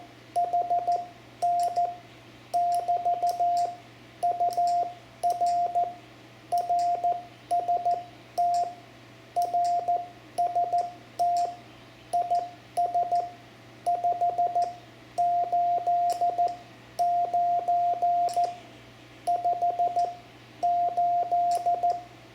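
Morse code (CW) keyed as a single steady beep tone, short and long elements grouped into characters and words with pauses between. It is a station's reply in a basic CW contact, sending its RST signal report of 589.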